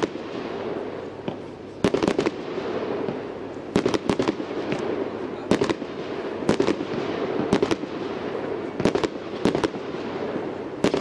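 Aerial firework shells bursting in a display: a sharp bang about every second, often two in quick succession, over a continuous hiss and rumble of the show.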